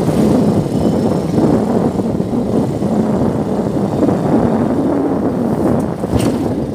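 Wind buffeting the microphone of a riding two-wheeler, mixed with its engine and tyre noise at steady road speed, with a steady rumble throughout.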